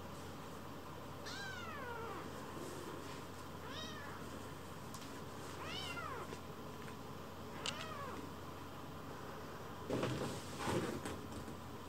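A very young kitten mewing four times, each a short high mew that rises and then falls in pitch. Near the end come two louder rustling scuffles as kittens wrestle on a fleece blanket.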